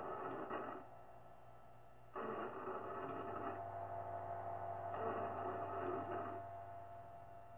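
Experimental noise piece: bursts of hiss about a second and a half long, repeating roughly every three seconds, over a steady low hum and a steady tone.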